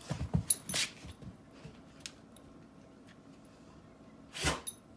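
A puppy and a cat play-fighting: a quick flurry of scuffling knocks and thumps in the first second, then a short, loud, rough animal sound near the end.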